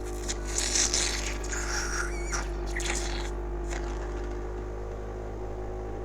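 Mechanical cough-assist (insufflation–exsufflation) machine's blower humming steadily, with noisy rushes of air and coughing through the first few seconds, then only the steady hum.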